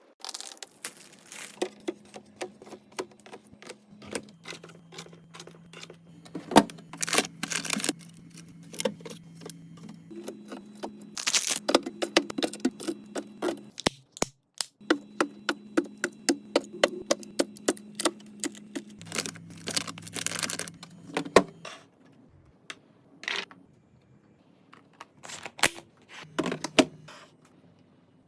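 Refrigerator restocking: a busy run of clicks, taps and clinks of food containers and packages being handled and set on fridge shelves, over a low steady hum. It thins to a few scattered knocks for a few seconds toward the end.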